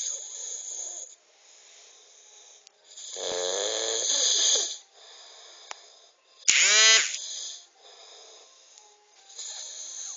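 Snoring: breathy hisses alternate with a longer rattling snore about three seconds in and a short, loud pitched snort about six and a half seconds in.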